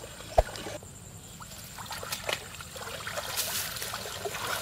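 A net loaded with water hyacinth being hauled out of shallow water, with water trickling and splashing off it and small crackles. A single sharp click about half a second in is the loudest sound.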